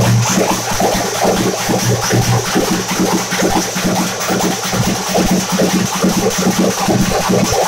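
A group of double-headed hand drums played with sticks in fast, dense, even strokes, with a steady low tone underneath.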